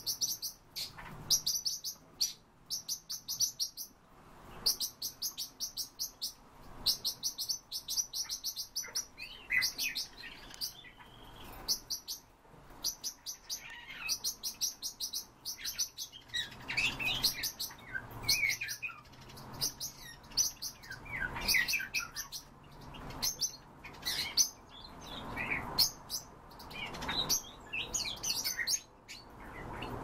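Caged finches chirping and twittering: short, fast, high-pitched trills repeated again and again, with more varied chirps overlapping in the second half. A faint steady low hum runs underneath.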